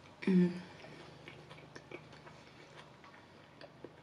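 Close-miked chewing of a forkful of food: small, scattered wet mouth clicks and smacks, with a short hum from the eater about half a second in.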